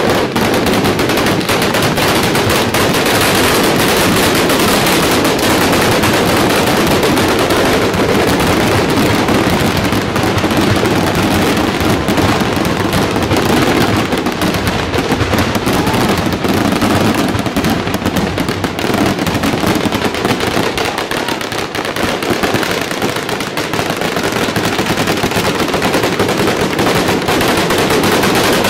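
Strings of firecrackers exploding in a continuous rapid crackle, the bangs running together like machine-gun fire, easing slightly about twenty seconds in before building again.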